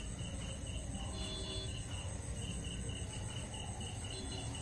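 Crickets chirping in a steady pulsing rhythm that drops out briefly a little after a second in, over a low steady background rumble.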